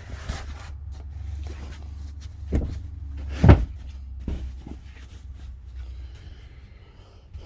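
Knocks and thumps of a storage compartment lid under a travel trailer's dinette seat being handled, the loudest about three and a half seconds in, over a low steady rumble that stops about six seconds in.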